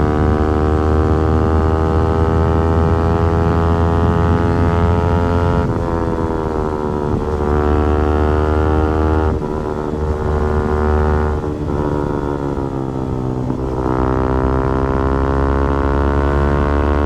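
Yamaha R15 V4's single-cylinder engine and exhaust under hard acceleration: the engine note climbs steadily, then drops sharply and climbs again several times, at about six, nine and a half and fourteen seconds in, as it shifts up through the gears.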